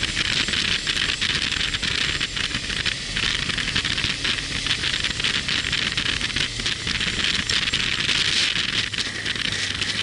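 Wind rushing and buffeting over the microphone of a moving motorcycle, a loud steady hiss full of small irregular crackles, with the motorcycle's engine as a low hum underneath.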